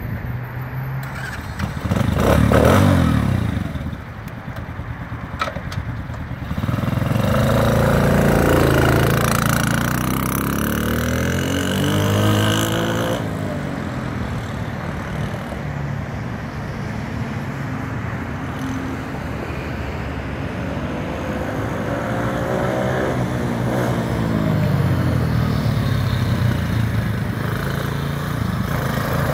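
A 125cc four-stroke sport ATV engine being ridden, its pitch climbing as it accelerates and falling as it eases off, several times over. One long climb breaks off sharply about halfway through.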